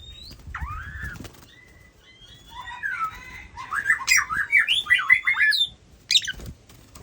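Oriental magpie-robin singing: clear whistled notes that slide up and down, then a fast, varied run of notes, and a short sharp call near the end.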